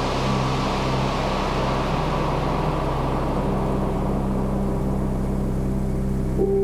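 Speed boat engine running with a steady low hum under a rushing wash of wind and water, the hiss easing off over the first few seconds. A steady higher tone comes in about halfway through.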